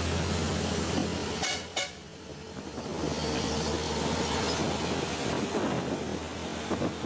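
Heavy truck's diesel engine running as it passes, with road noise. About a second and a half in come two quick horn toots.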